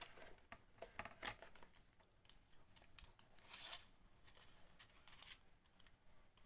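Faint clicks and rattles of small tools being handled and pressed into a tight-fitting slot of a tool-kit case, with a brief scrape about three and a half seconds in.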